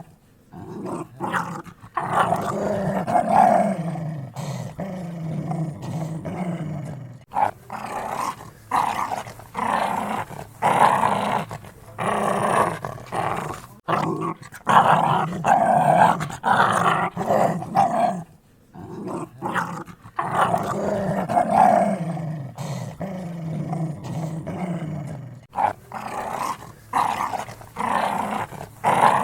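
Dogs growling in repeated stretches of one to a few seconds, broken by short pauses.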